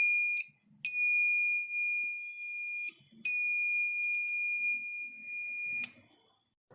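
Battery-powered alarm buzzer sounding a steady high-pitched tone in three stretches. It is switched off about half a second in, sounds for about two seconds, then for nearly three seconds, and stops near the end, showing that the alarm circuit works.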